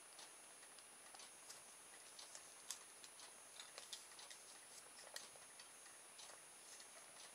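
Faint, irregular small clicks and taps of a plastic motor-kit frame and its wire being handled and fitted together.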